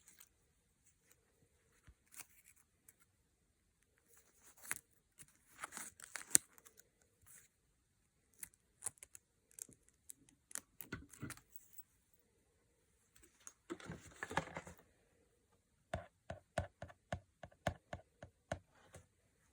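Blind-box packaging being torn open and handled: scattered tearing and crinkling of wrapping, with sharp clicks and a quick run of rapid clicks near the end.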